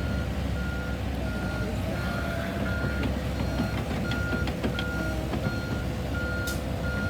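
Backup alarm of a heavy construction vehicle beeping on one steady pitch, about three beeps every two seconds, over the low running of a diesel engine, with a few short metallic clanks partway through.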